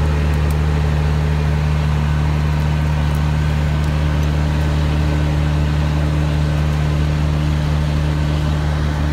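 Sugarcane harvester's diesel engine running at a steady speed, a deep even hum that holds the same pitch throughout.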